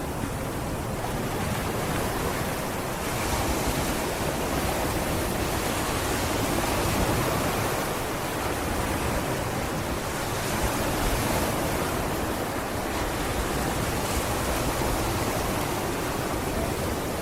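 Sea waves washing onto a beach: a continuous rushing of surf that swells and eases slowly, with no distinct breaks.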